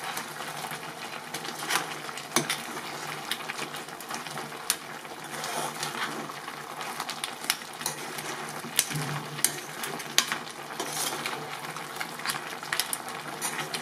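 A metal spatula stirs crab pieces and grated coconut in a metal kadai, scraping and clicking irregularly against the pan over a steady sizzle of frying.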